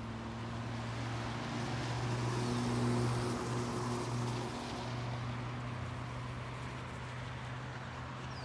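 Road traffic: a vehicle's engine and tyres swell to a peak about three seconds in and then fade, over a steady outdoor hiss.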